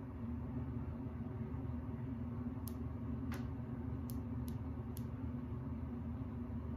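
Steady low mechanical hum of room background noise, with a few faint clicks in the middle.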